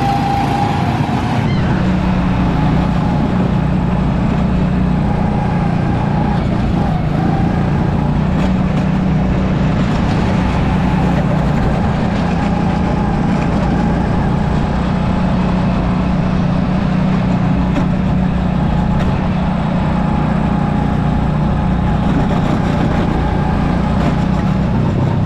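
Steady running noise of a motor vehicle: an even rumble with a constant low hum and a faint higher tone.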